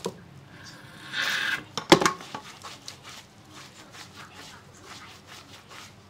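Short spray of water from a salon shampoo-basin hand shower, then a couple of sharp knocks as the shower head is handled and put down. After that, soft rubbing of lathered hair under the fingers during the scalp scrub.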